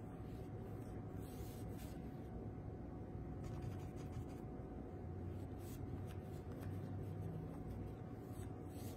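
Paintbrush strokes spreading paint across a canvas: faint, scratchy brushing that comes and goes over a steady low hum.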